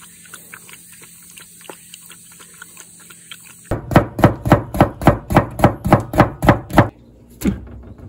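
Knife chopping rapidly on a cutting board, an even run of about four to five chops a second for some three seconds starting about midway, then a single chop near the end. Before the chopping there are only faint light taps.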